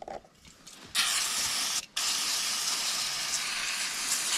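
Aerosol spray can hissing in two bursts: a short one about a second in, then a longer one that runs on after a brief break.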